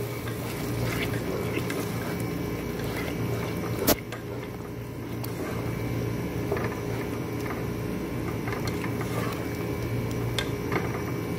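Plastic slotted spatula stirring yogurt into a thick, wet biryani masala in a pot, soft wet stirring sounds over a steady low hum. One sharp knock about four seconds in.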